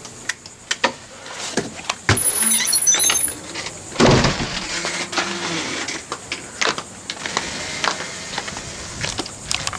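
A house door being opened and banging shut about four seconds in, amid handling clicks, then footsteps on the ground outside.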